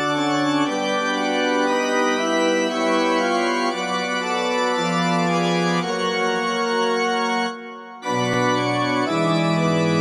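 Organ music: sustained chords that change about once a second. It dips and fades briefly near the end, then picks up again.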